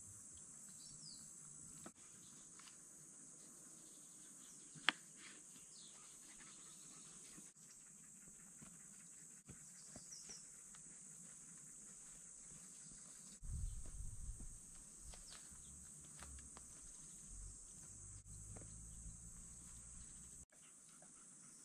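Quiet outdoor ambience: a steady high insect hum, like crickets, with a few faint chirps. There is one sharp click about five seconds in, and low rumbling from around two-thirds of the way through, loudest near the start of that stretch.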